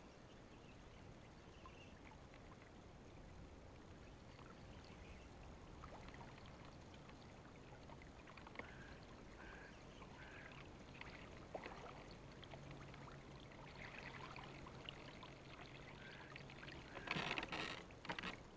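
Faint water sounds of a river, with a louder burst of noise near the end.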